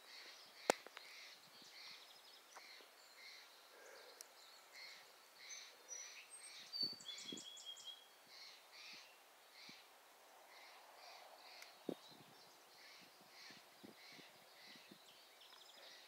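Faint birdsong: a bird repeating a short high call over and over, roughly twice a second, with a few brief chirps from other songbirds in the middle. A single sharp click sounds near the start.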